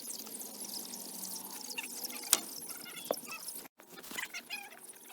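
Water sloshing and pouring as a poultry waterer is handled, with a couple of sharp knocks around the middle. After a brief break near the end, meat chickens peep.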